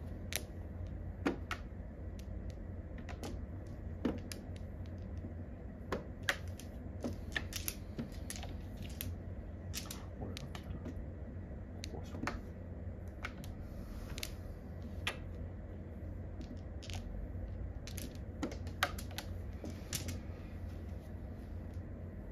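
Mahjong tiles clicking as they are drawn and discarded onto an automatic mahjong table: sharp, irregular clicks about one or two a second, a few louder than the rest, over a steady low hum.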